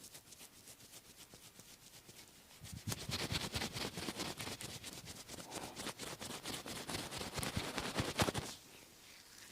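Hands massaging bare skin: faint, even strokes at first, then about three seconds in a louder, rapid run of hand strokes lasting about six seconds that stops abruptly.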